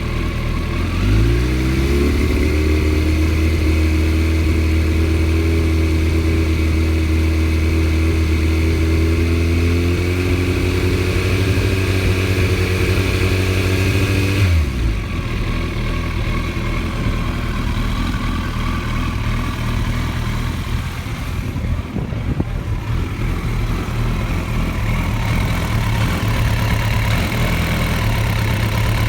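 Engine with a rough idle, revved up about a second in and held at a steady raised speed, then dropped back to idle about halfway through and left idling.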